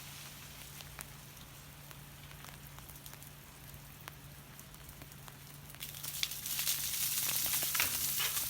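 Steady hiss of falling wet snow with scattered light ticks, getting louder about six seconds in.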